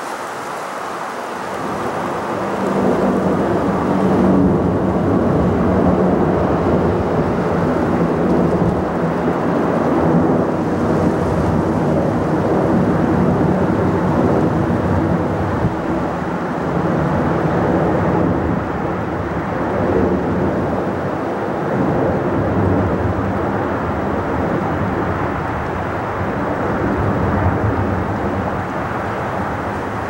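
Emirates Airbus A380's four jet engines at climb power as it passes overhead: a loud, rolling rumble with a low drone, swelling about two seconds in and staying loud with slow rises and dips.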